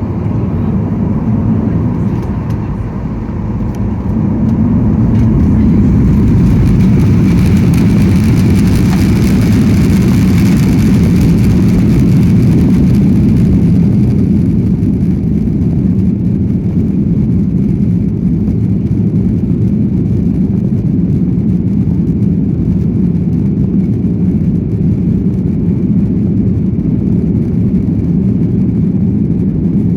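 Cabin noise of a Boeing 737-800 with its CFM56 jet engines running, rising about four seconds in to a loud, steady low rumble that fits the engines coming up to takeoff power.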